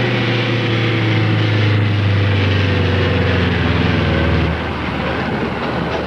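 Loaded logging truck's diesel engine running as the truck goes by. Its pitch sinks slowly and the sound eases off a little about four and a half seconds in.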